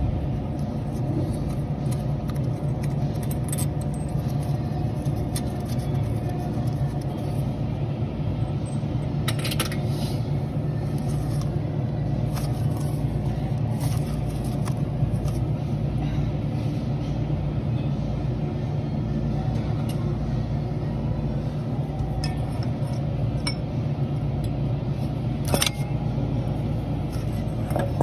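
Steady low mechanical rumble, with a few light clicks and scrapes and one sharper click near the end.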